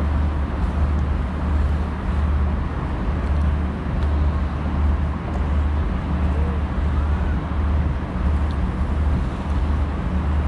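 Steady road traffic noise: a continuous rumble of cars driving by on a busy city street.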